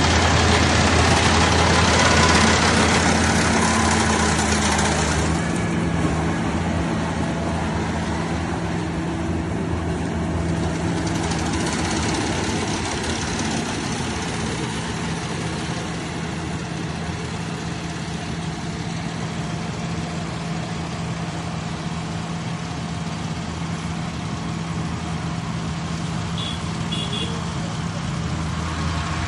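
Engine of a rice harvesting machine running steadily. About five seconds in, its note shifts and it runs a little quieter.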